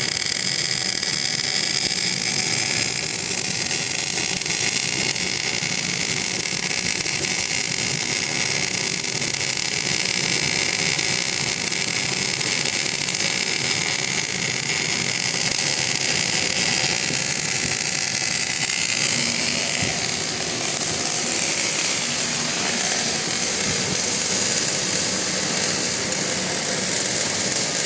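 Steady machine noise with a strong hiss.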